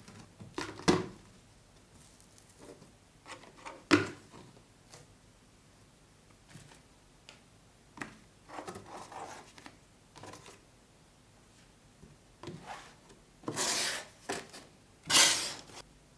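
Packaging being handled: scattered knocks and scrapes, with a sharp knock about a second in and another about four seconds in, then two longer rasping rubs near the end.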